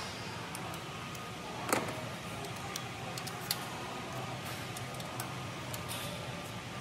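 Scattered metallic clicks and clinks of a ratchet wrench and bolts being worked by hand, the sharpest about two seconds in, over a steady low hum.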